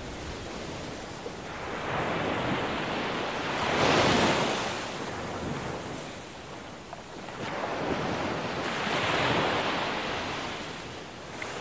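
Ocean waves washing in: a steady rush of surf that swells twice, loudest about four seconds in and again near nine seconds.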